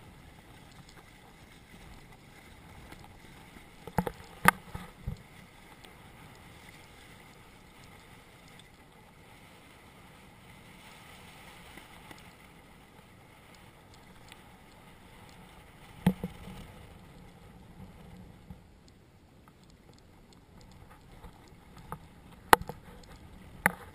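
Water rushing and splashing along the hulls of a Hobie Cat catamaran under sail, a steady wash. Sharp knocks break through it: three in quick succession about four seconds in, one about two-thirds of the way through, and a couple near the end.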